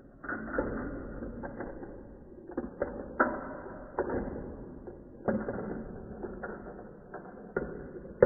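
Steel marbles rolling along the plastic tracks of a Gravitrax marble run, starting about a third of a second in, with a sharp click every second or so as they drop, land and knock against the plastic pieces and other marbles.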